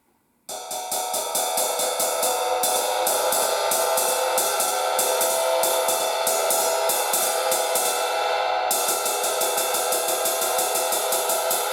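MEINL Byzance Dark Crash 16-inch cymbal played as a ride with a stick in a quick, even run of strokes, starting about half a second in with a short break near nine seconds. It is an unlathed cymbal, so its wash is dry and dark with short sustain.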